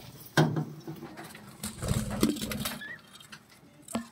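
Clicks, knocks and rumble from a phone being handled and moved about inside a budgerigar cage, with one short, faint rising chirp from a budgerigar about three seconds in.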